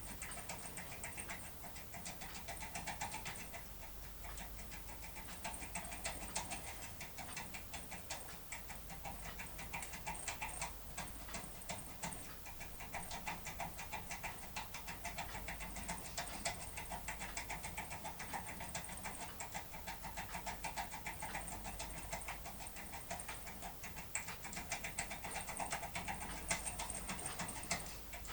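Foil impression lock pick being worked inside a Standers pin-tumbler cylinder: a continuous run of small metallic clicks and scraping as the tool is rocked and pressed in the keyway, impressioning the foil on the pins.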